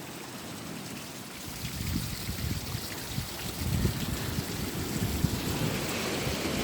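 A steady rush of water, with gusts of wind buffeting the microphone from about a second and a half in.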